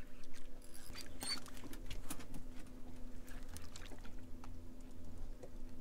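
Fishing reel being cranked to bring up a hooked fish on a bent rod: irregular light clicks and ticks over a steady low hum.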